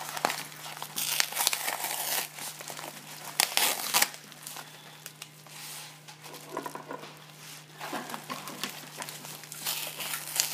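Kraft bubble mailer crinkling and crackling in irregular bursts as hands handle and pull at it to get it open, loudest in the first few seconds.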